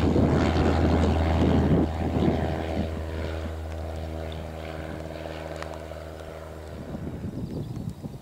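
Single-engine light aircraft's piston engine and propeller droning steadily on takeoff and climb-out, growing fainter as the plane climbs away, then cutting off about seven seconds in. Wind buffets the microphone over the first couple of seconds.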